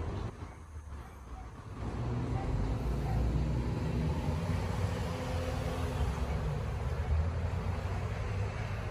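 Chicago 'L' rapid-transit train approaching on steel rails: a steady rumble of wheels and running gear that grows louder about two seconds in and then holds.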